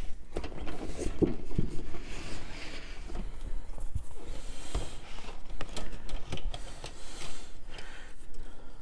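Handling and unpacking of a plastic model kit: the cardboard box and plastic sprues rustle, with irregular small clicks and knocks.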